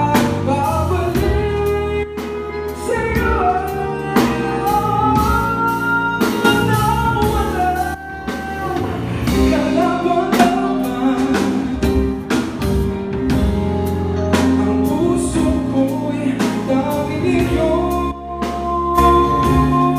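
Live band performing a song: a male lead singer holding long notes over electric bass, drum kit and electric guitar.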